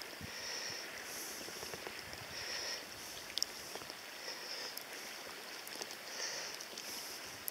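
Shallow river water running and lapping around hands holding a brown trout in the current, with a sharp tick about three and a half seconds in.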